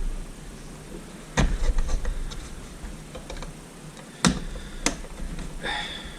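Sharp clicks and knocks of an electronics casing being handled and pried apart, one loud knock about a second in and two more around four to five seconds in, with light scraping between.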